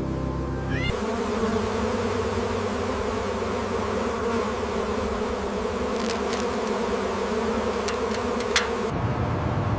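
Bee swarm buzzing steadily, a dense drone that starts about a second in and cuts off abruptly near the end.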